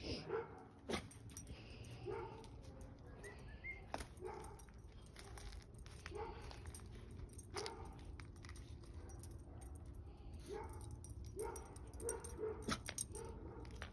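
Dogs barking, short barks repeated every second or two, with a few sharp knocks among them.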